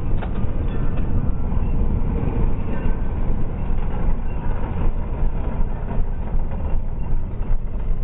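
Loud, steady rumble picked up by a motorcycle-mounted camera: wind on the microphone mixed with the riding motorcycle's engine and road noise.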